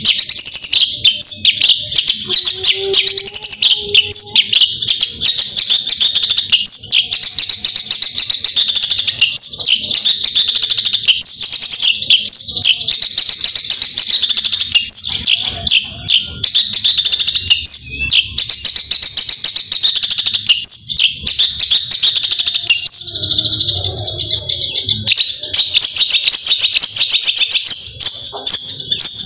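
Long-tailed shrike (cendet) singing loudly and without pause: a rapid, dense run of high chattering and whistled notes, with a short break about three-quarters of the way through.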